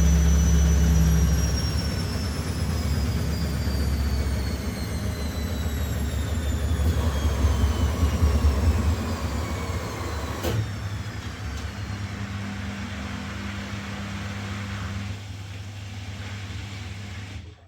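Washing machine spinning down after a high-speed spin: the motor's whine falls steadily in pitch and the low hum of the drum fades. A single sharp click comes about ten seconds in.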